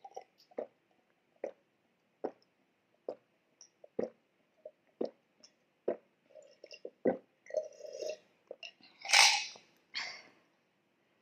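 A person gulping down a glass of iced Sprite, about eight swallows roughly once a second, followed near the end by a loud breathy exhale.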